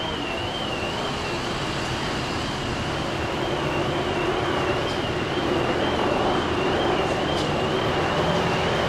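A shrill electronic alarm tone warbling up and down about twice a second, without a break. Beneath it, a steady engine hum and traffic noise get louder in the second half.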